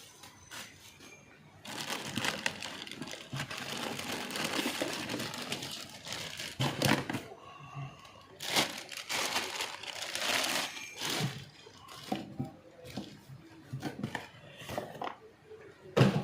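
Packaging being handled during unboxing: crinkling and rustling of wrapping, with scattered knocks and one sharper knock near the end.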